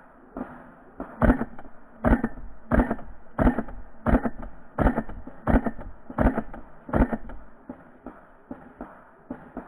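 Intro music with a steady, heavy drum beat, about one strong hit every 0.7 s. The beat is loudest from about a second in until about 7 s, then drops back to lighter hits.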